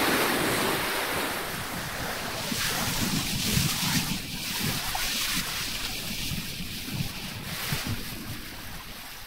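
Bow wave of a sailing yacht under way rushing and splashing along the hull, with wind buffeting the microphone. It grows gradually fainter toward the end.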